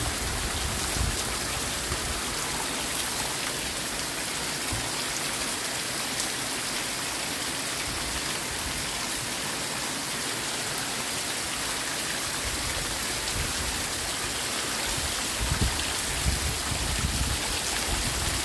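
Heavy hurricane rain pouring down steadily, an even hiss of rain on grass, puddles and the porch. Gusts of wind rumble on the microphone right at the start and again near the end.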